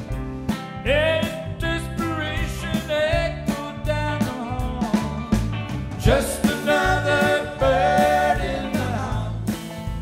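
Live band playing electric guitars and drums, with a lead line of sliding, bending notes over a steady beat.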